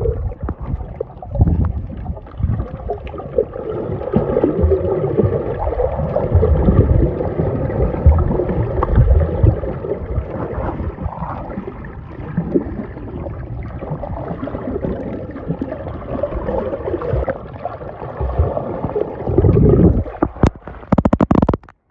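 Water sloshing and gurgling around the microphone, muffled, with uneven low rumbling throughout. A few sharp clicks come near the end.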